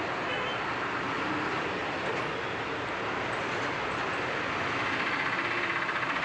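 Steady background noise, an even hiss and rumble at a constant level, with a faint fast rhythmic buzz joining in about five seconds in.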